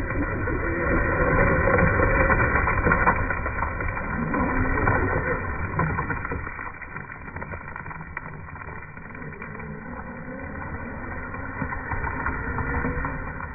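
Slowed-down, pitched-down sound of a Losi Baja Rey RC truck's electric motor and drivetrain: a deep, muffled running noise with slow whines that rise and fall several times, and scattered light clicks.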